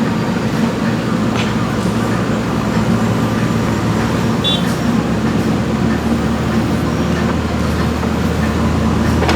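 Diesel engine of a JCB 3DX backhoe loader running steadily as it works, with a few faint knocks.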